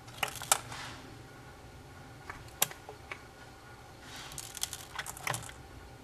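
Eastern Japanese common toads' feet and bodies knocking and scraping against a plastic feeding tray as they shift about: a few sharp clicks in the first second, a single click about two and a half seconds in, and a quick flurry of clicks near the end.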